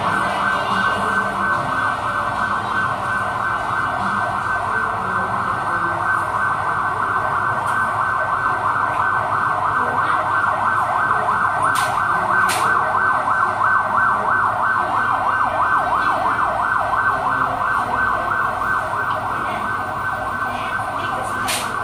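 Siren sounding a rapid, steady yelp that continues without a break.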